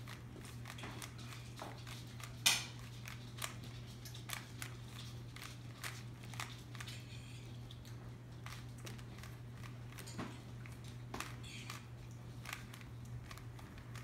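Plastic Rubik's cube being turned by hand: quick, irregular clicks and clacks as its layers are twisted, with one sharper click about two and a half seconds in, over a steady low hum.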